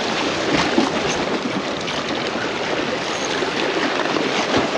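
Steady rush of seawater washing and splashing against jetty rocks, with a few faint clicks.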